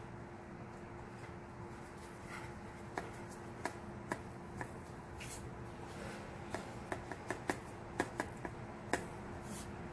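Salt being shaken through a small plastic funnel into hollow metal BB-gun cartridge shells in a metal pan: about a dozen light, irregular ticks and taps, starting about three seconds in, over a faint steady hum.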